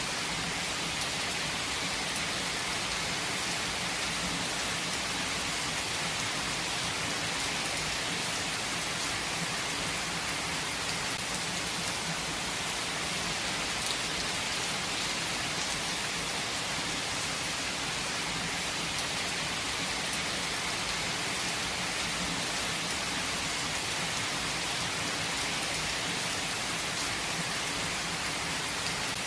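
Steady rainfall, an even hiss of many drops with faint individual drop ticks, unchanging throughout.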